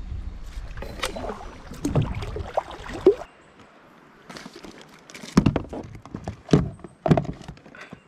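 Knocks and clatter on a kayak, a few sharp ones in the second half, after a low wind rumble on the microphone that cuts off about three seconds in.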